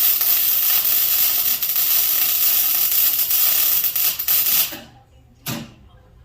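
Electric arc welder crackling and hissing steadily as a bead is laid on thin steel, stopping abruptly about three-quarters of the way through; then two short knocks.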